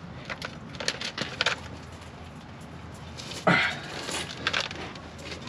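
Wrench working the tight lower bolt of a Miata's clutch slave cylinder: a few light metal clicks, then one sharp clank about three and a half seconds in.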